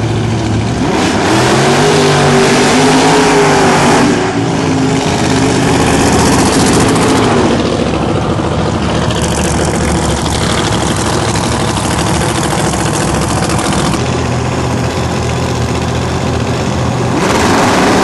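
Drag-race car engines running loud at the strip, revving with the pitch rising and falling as a car launches and pulls down the track. A steady drone follows, then another rise in pitch near the end.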